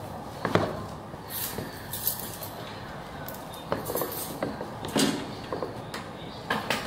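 Black Puma suede sneakers being put on and laced: scattered soft knocks and scuffs as the shoes are handled and set down, with a few brief rustles of the laces.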